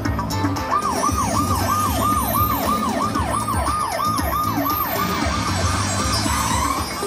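Slot machine bonus sound effect: a siren-like warbling tone that rises and falls about three times a second, then stops near the end, over the low din of a casino floor.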